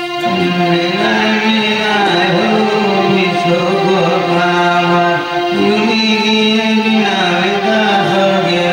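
Santali Karam song: singing over sustained electronic keyboard notes that change pitch every second or two, with a short break in the line about five seconds in.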